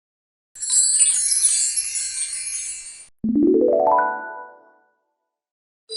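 Two 'magic' sound effects for on-screen captions: first a bright, glittering twinkle of high chime-like tones lasting about two and a half seconds, then a quick rising pitched sweep that rings off briefly.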